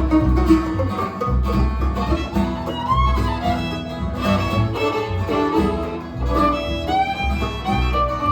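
Bluegrass band playing an instrumental break, the fiddle taking the lead with sliding notes over banjo and guitar and a steady low bass line.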